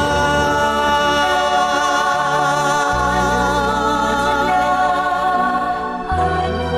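Devotional song: voices holding long sung notes, on-screen as the word 'anumodana' ('rejoice'), over an accompaniment whose bass moves to a new chord about three seconds in and again about six seconds in.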